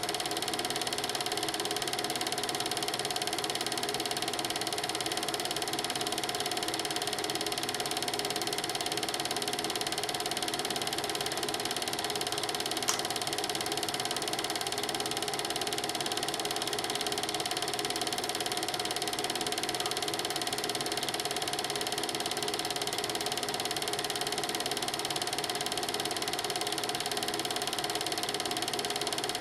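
Film projector rattling steadily as it runs the film, with one sharp click about halfway through.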